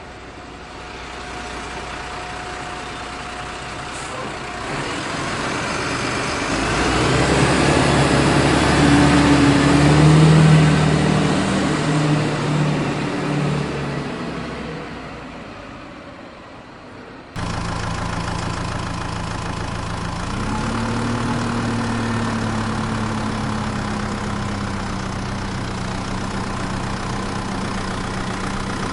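Truck engine running. It swells to a peak about ten seconds in and fades away, then after a sudden cut a steady idle takes over, revving up slightly about twenty seconds in and settling back.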